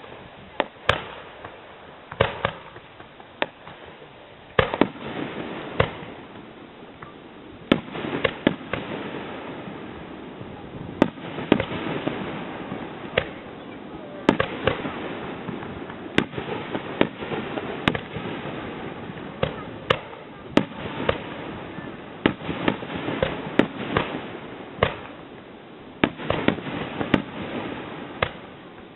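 Aerial fireworks shells bursting in a continuous barrage: sharp booms at irregular intervals, sometimes several a second, over steady crackling, with the booms rumbling back off the mountains around the valley.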